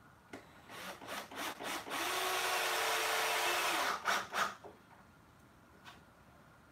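Cordless drill driving a screw into wood: a few short trigger bursts, then a steady run of about two seconds, then two more quick bursts as the screw seats.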